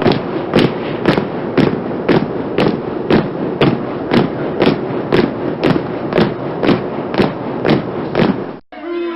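Heavy thumps repeating evenly, about two a second, over a steady rushing noise. The sequence cuts off suddenly near the end, and a short, different sound follows.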